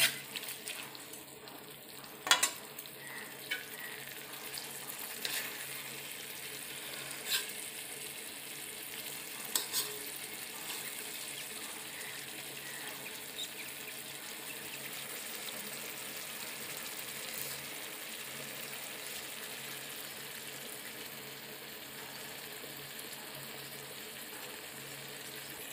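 Eggplant and pork sizzling steadily as they stir-fry in a metal wok, with a few scrapes and taps of a metal spoon against the pan in roughly the first ten seconds.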